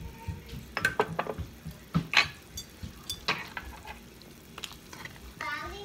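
Irregular light clicks and taps of spice containers being handled and shaken over a pot of boiling seasoned water, with the water bubbling underneath.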